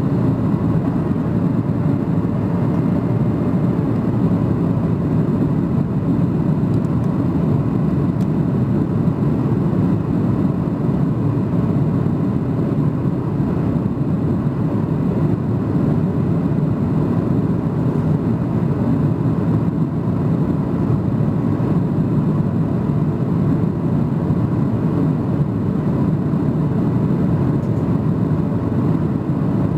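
Steady cabin drone of a Boeing 737-800 in flight, heard from a window seat over the wing: its CFM56 jet engines and the airflow past the fuselage make a deep, even rush, with a faint steady whine above it.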